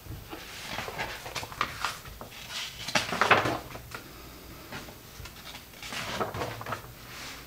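A picture book's cover being opened and its pages handled and turned: several short bursts of paper rustling, the loudest about three seconds in.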